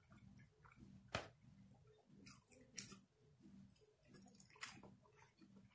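A person chewing rotisserie chicken, with three sharp clicks spread about a second and a half apart.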